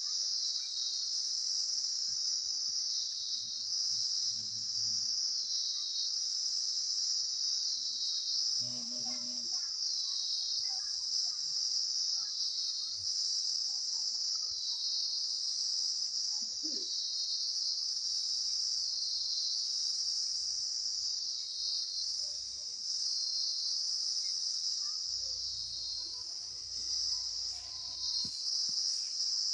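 A chorus of insects, crickets or cicadas, making a continuous high-pitched trill that swells and eases in a regular pulse every second or so.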